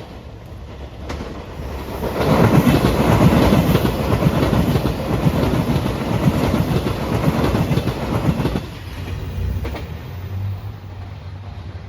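A train passing close by, its wheels clattering in a fast run of clicks over the rails. The noise swells about two seconds in and drops off after about eight and a half seconds, leaving a lower rumble.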